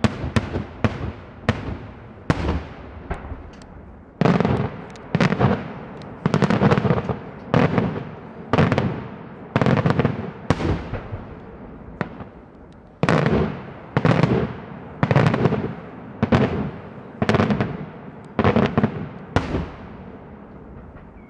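Daylight fireworks display: a long run of loud aerial shell bangs, each followed by a rolling echo. They come about two a second at first, then louder and about one a second, with a short lull about twelve seconds in.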